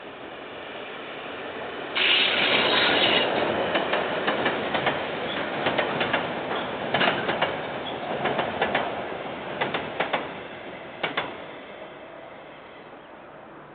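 Container freight train wagons rolling past: a steady rush of wheels on rail that swells suddenly about two seconds in, with a run of sharp clacks as the wheels cross rail joints, fading near the end.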